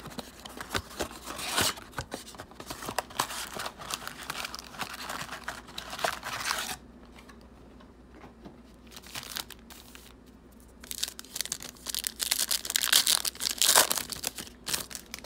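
Trading card packaging being torn open and crinkled: plastic and foil wrappers crackling for several seconds, a pause, then a second spell of crinkling and tearing near the end.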